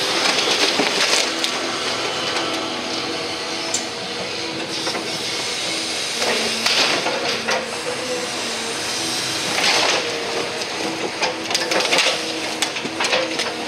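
Demolition excavator running, its sorting grapple crunching and scraping through brick rubble, wood and sheet metal with several clattering crashes.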